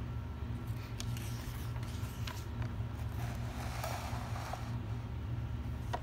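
Textbook page being turned by hand and pressed flat: a few light ticks and a soft paper rustle through the middle, over a steady low hum.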